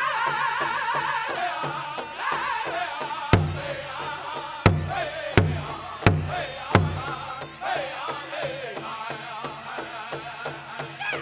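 Pow wow drum group singing a chicken dance song: high-pitched wavering voices over a steady fast drumbeat on a big drum. Five loud accented drum strikes come between about three and seven seconds in.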